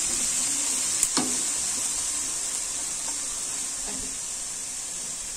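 Diced vegetables sizzling steadily in oil in a frying pan, with a couple of sharp clicks about a second in.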